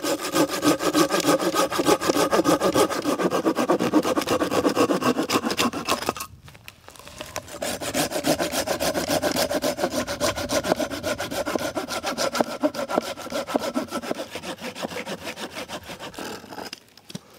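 Saw cutting through wood in rapid back-and-forth strokes, in two bouts with a short pause about six seconds in.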